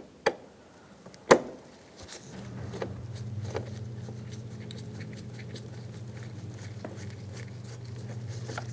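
Phillips screwdriver backing a screw out of the door-handle mount, with two sharp clicks early on and faint scattered ticks after them. A steady low hum starts about two seconds in and keeps going.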